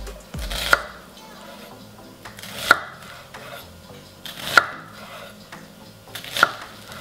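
Kitchen knife slicing an onion into half-rings on a wooden cutting board: four slow cuts about two seconds apart, each a short crunch through the onion ending in a sharp knock of the blade on the board.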